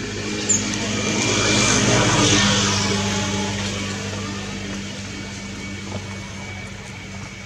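A motor vehicle passes by: its noise swells to a peak about two seconds in and slowly fades, over a steady low engine hum.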